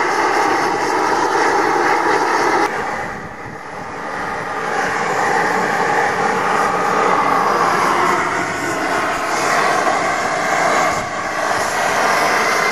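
1937 Beijer 25 HP horizontal hot bulb engine running steadily. About three seconds in, the sound changes abruptly and dips, then builds back up.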